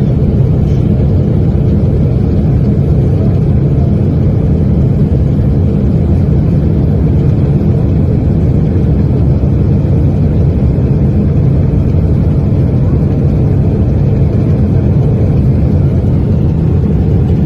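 Aircraft in flight: a loud, steady low roar of engine and airflow noise that holds an even level throughout.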